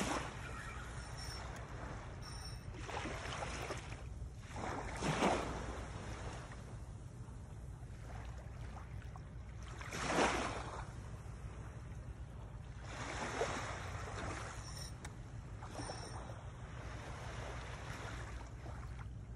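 Small waves washing against the shore every few seconds, each a swell of hiss lasting about a second, over a steady low rumble.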